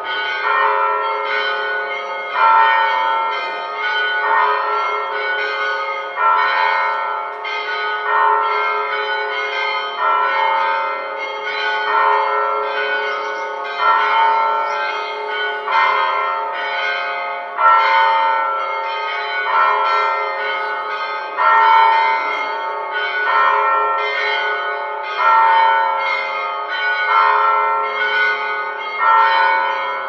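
Church bells chiming: a steady run of strikes, about one a second, from several bells of different pitch, each tone ringing on into the next.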